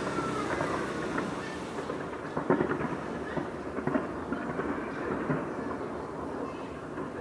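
Fireworks going off in a continuous rumble of bursts and crackles, with sharper bangs about two and a half seconds in and again around four seconds.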